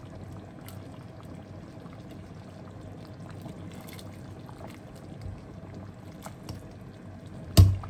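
Metal ladle stirring a pot of simmering vegetable soup, lifting broth and pouring it back with a soft liquid splashing. Near the end comes one sharp, loud knock.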